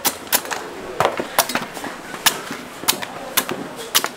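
Coconuts being chopped with a heavy knife: a run of sharp, uneven knocks, two or three a second.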